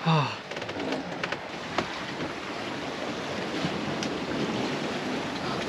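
Sea water rushing and splashing against a small sailboat under way, with wind buffeting the microphone as a steady noise. A short voice sound at the very start and a few light knocks in the first second and a half.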